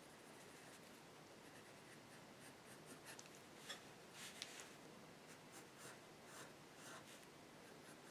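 Faint scratching of a black coloured pencil on drawing paper: a run of short, quick strokes as eyelashes and small details are drawn in.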